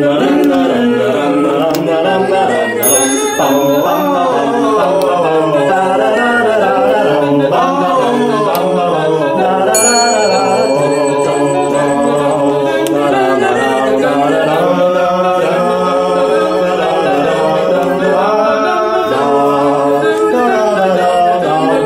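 A cappella vocal music, several voices singing together. A high bell rings about three seconds in and again about ten seconds in.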